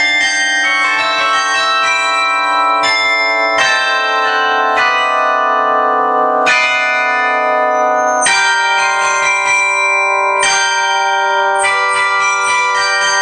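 Carillon bells struck one after another, playing a pop melody, each note ringing on and overlapping the next.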